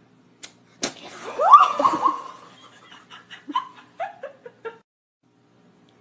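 A sharp smack as the kitten swats at the face bent over it, followed by a short startled cry that rises and falls. Then a run of choppy laughter, falling in pitch.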